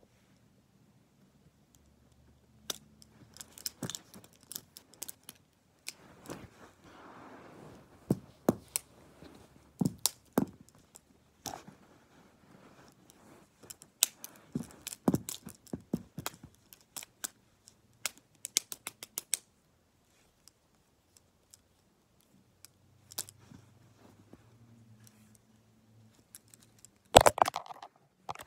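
Plastic gel pens being handled and knocked together in a pen fight: irregular sharp clicks and taps with soft rustling, a quiet stretch past the middle and a louder clatter near the end.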